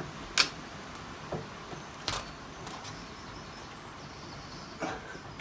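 Four separate sharp knocks during work under a car, the loudest about half a second in, over a steady low background hiss.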